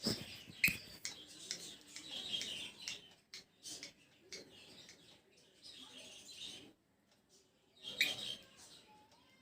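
Pet cockatiel making short, high-pitched chirping chatter in irregular bursts, with a few clicks and a brief lull near the end.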